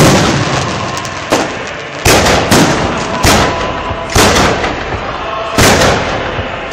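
Aerial firework shells bursting overhead: a run of about seven loud bangs, roughly one a second, each dying away over about a second before the next.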